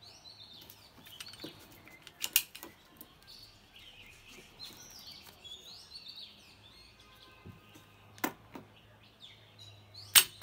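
Sharp clicks from a Life Card .22 WMR toy pistol's mechanism as it is handled and worked: one about two seconds in, a smaller one near eight seconds and the loudest near the end. Birds chirp faintly in the background.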